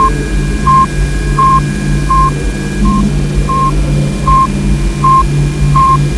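Sputnik-1's radio beep repeating evenly, about three short beeps every two seconds, layered over a pulsing low hum and radio-like hiss from spacecraft recordings of plasma waves and solar oscillations.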